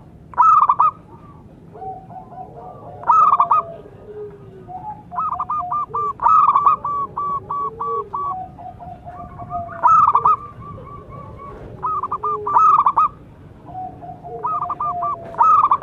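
Zebra doves cooing: about six loud phrases of rapid, clipped staccato notes, coming every two to three seconds, with fainter, lower cooing notes between them.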